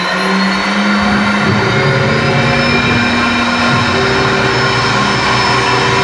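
Phantom CNC router spindle spinning back up as a paused program resumes: a high whine rising in pitch for about two and a half seconds, then holding steady. Under it, lower motor tones change about a second in and again later as the axes move.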